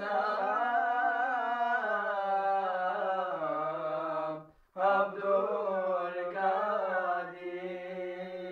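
Young men singing a Turkish Sufi hymn (ilahi) unaccompanied: long, ornamented vocal lines over a steady low held note, with a short pause for breath about halfway through.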